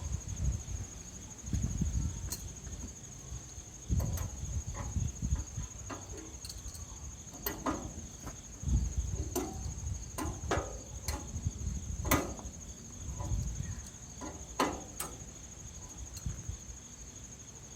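Scattered metallic clicks and knocks of hand tools working the sawmill's blade-tracking bolts and frame, with some low bumps of handling. A steady high insect trill runs underneath throughout.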